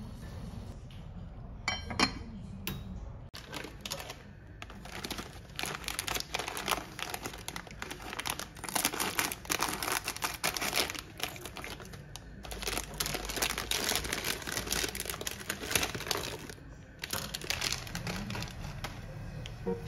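Low rumble of a pot of water boiling on a gas hob for the first few seconds, then the plastic wrapper of an instant-noodle packet crinkling irregularly as it is handled and opened, with short pauses.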